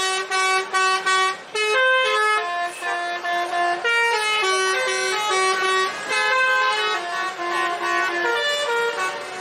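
A bus's telolet musical air horn playing a quick tune of stepped notes, one after another with hardly a break, sometimes two notes at once.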